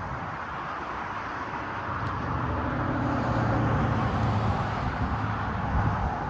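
Road traffic noise: a motor vehicle passing, its low drone swelling to a peak a few seconds in and then easing off over a steady outdoor rumble.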